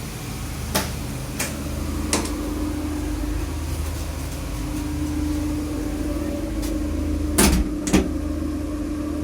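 Moving diesel multiple-unit train heard from inside a passenger coach: a steady low rumble with a constant hum, and a few sharp knocks from the running gear and coach fittings, two near the start and a pair about three quarters of the way through.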